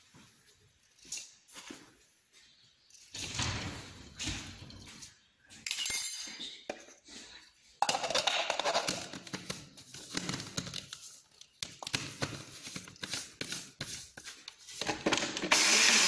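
Sesame seeds spooned into the plastic cup of an electric spice grinder, with clicks, knocks and rattling as the cup is handled and fitted onto the base. Near the end the grinder's motor starts with a sudden loud, steady whirr, grinding the sesame.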